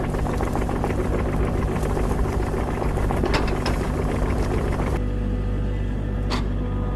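Kubota mini excavator's diesel engine running steadily, with two short knocks, about three seconds apart.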